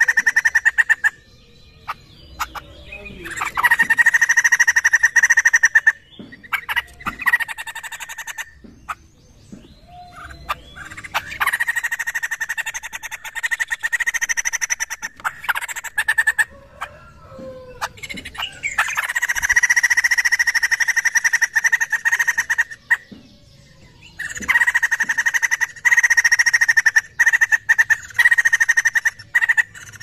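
White-crested laughingthrush (poksay jambul) giving loud bouts of rapid chattering calls, each lasting a few seconds, with short pauses between them.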